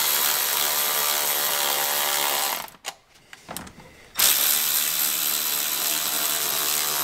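Cordless electric ratchet running with a socket on hose clamps, snugging them up. There is one steady run of motor whine, a short pause with a few clicks, then a second run on the next clamp.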